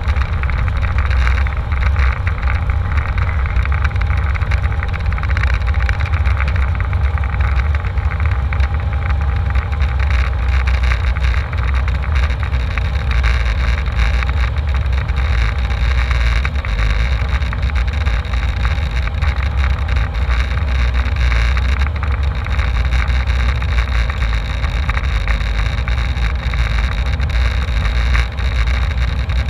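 Embraer E190 airliner's jet engines and airframe: a steady, loud low rumble with faint whining tones above it.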